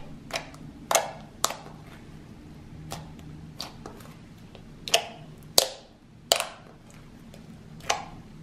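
Grey clay-based slime squeezed and poked by hand, giving sharp pops and clicks as air pockets burst, about nine at uneven spacing, roughly one a second.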